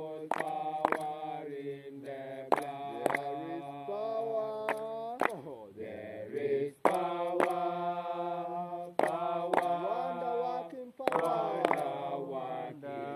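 Voices chanting a slow, drawn-out Rastafari sabbath chant, holding long notes. A sharp beat falls in pairs every two seconds or so.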